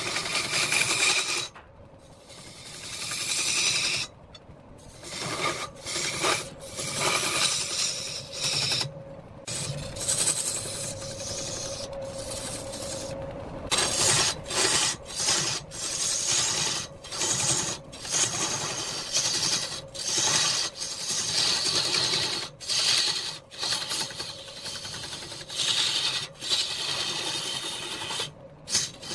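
Turning tool cutting into a large wooden blank spinning on a lathe: a rough rasping scrape that comes in passes, broken by short gaps as the tool comes off the wood, with a steady faint tone underneath.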